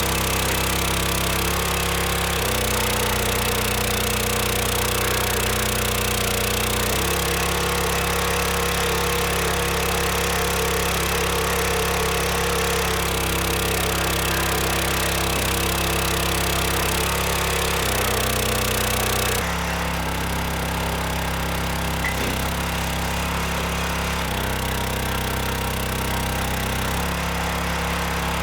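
Gas engine of a 25-ton log splitter running steadily, its note shifting several times as the hydraulic pump takes up and sheds load while the ram splits a knotty oak round and returns.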